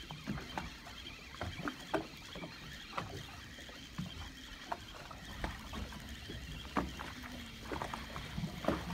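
Ambient sound on a small fishing boat while a fish is reeled in on a spinning rod: irregular knocks and clicks over a low rumble, with a faint steady high whine.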